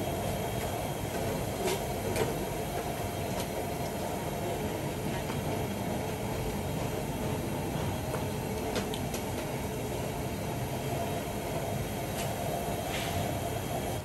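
Steady mechanical rumble with a constant hum, and a few faint clicks.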